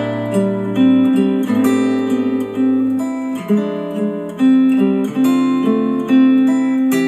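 Acoustic guitar instrumental music with plucked notes, played through Dayton Audio B652 Air bookshelf speakers driven by a Yamaha A-S301 integrated amplifier.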